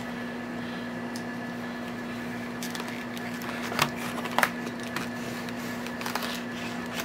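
Stiff clear plastic blister packaging crackling and clicking as it is pressed and worked open by hand, with a couple of sharp snaps about four seconds in. A steady low hum runs underneath.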